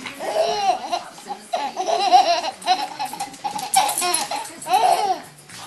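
Baby laughing and giggling in about five excited high-pitched bursts with short breaths between.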